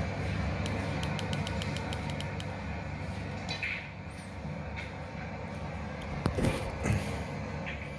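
Steady low hum of room tone with a run of faint ticks about a second in, then two sharp clicks about half a second apart near the end.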